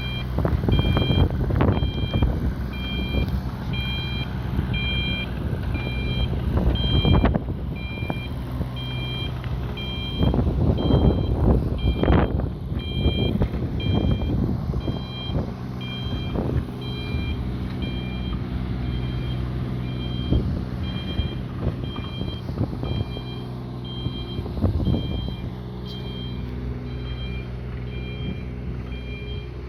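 Carter excavator's engine running, its alarm beeping in a steady string of short, evenly spaced beeps, with knocks and clanks from the machine working that come mostly in the first half.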